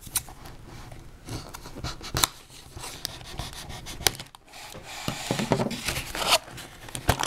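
Scissors cutting the seal of a cardboard toy box, then the stiff cardboard end flap being pried open: rubbing and scraping of cardboard with a few sharp clicks, busiest between about five and six and a half seconds in.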